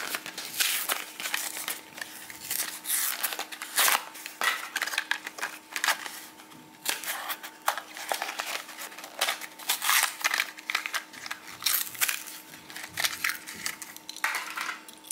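Toy car blister pack being torn open by hand: the plastic blister and cardboard backing crinkle, crackle and tear in a rapid, irregular string of noises.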